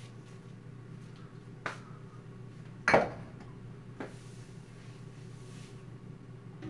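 GoWISE USA air fryer running at a cooking setting with a steady low hum from its fan. A few sharp clinks sound over it, the loudest about three seconds in.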